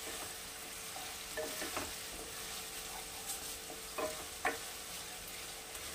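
Finely chopped onions sizzling steadily in hot oil in a kadai, stirred with a wooden spatula that scrapes against the pan a few times.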